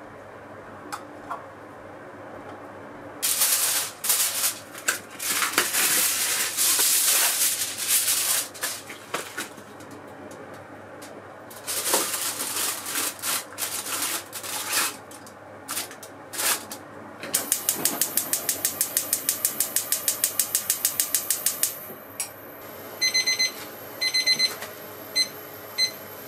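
Aluminium foil crinkling and rustling as it is pressed over a steamer basket, in two spells. Then a fast, even run of clicks, about seven a second, lasting some four seconds, followed by a few short electronic beeps.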